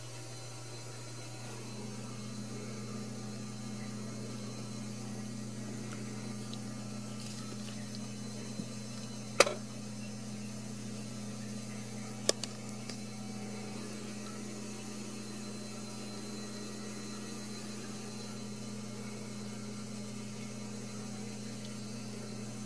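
A steady low hum, with two sharp clicks, one about nine seconds in and one about twelve seconds in.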